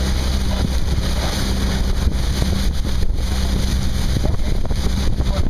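Outboard motor of a following boat running steadily with a low hum, with wind buffeting the microphone and water rushing past.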